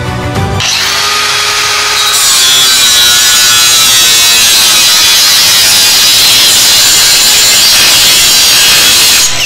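Milwaukee M18 Fuel cordless angle grinder with a metal cutoff wheel cutting through a metal battery-tray bracket: a loud, steady, high-pitched grinding screech. It starts about half a second in, gets louder about two seconds in, and stops just before the end as the piece comes off.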